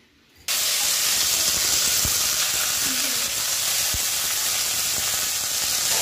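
Chopped vegetables (green beans, carrot and pale strips) frying in hot oil in a wok, a steady sizzle that starts abruptly about half a second in, with a few soft knocks from stirring.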